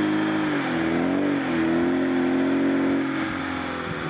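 Lada Niva's engine working hard under load as the 4x4 climbs a muddy, rocky slope. The revs hold, sag and waver about a second in, pick up again, then ease off near the end.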